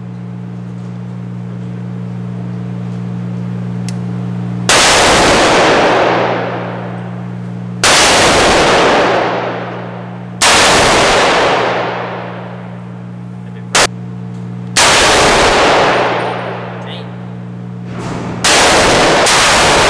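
Single shots from a 10.5-inch .300 Blackout AR pistol: about six, two to four seconds apart, each with a long echoing tail, and one shorter crack in between. A steady low hum runs underneath.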